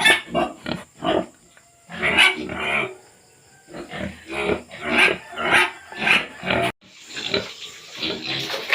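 Domestic pigs grunting and squealing in a rapid string of short calls, about two a second, with a brief pause partway through. Near the end the calls give way to a steady rushing noise.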